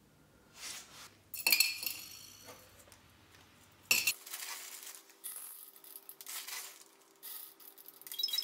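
Lead shot balls poured in small bursts into a stainless steel cup holding lead scraps, a patter of tiny metallic clicks and clinks that grows denser near the end. Before that, a few separate ringing metallic clinks and one sharp knock.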